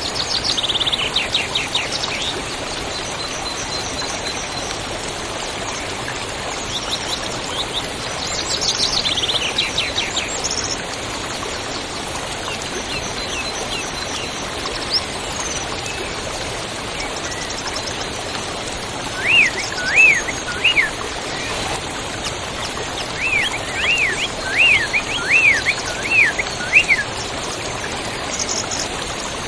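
Songbirds calling over the steady rush of a river: rapid trills at the start and again about nine seconds in, then a run of repeated swooping whistled notes from about twenty seconds in.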